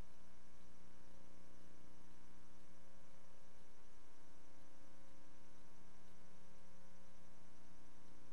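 Steady electrical hum with many overtones over a faint hiss, unchanging throughout: the background noise of an archival film transfer that has no soundtrack of its own.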